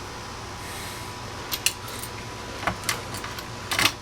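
Sharp metallic clicks and clinks, in pairs about a second apart, with a last cluster near the end, as a Simplex 4251-20 T-bar fire alarm pull station is handled.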